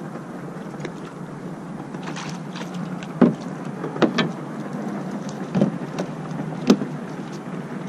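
Several sharp knocks and taps, about five over a few seconds, from handling gear and a caught fish aboard a fishing kayak, over a steady hiss of wind and water.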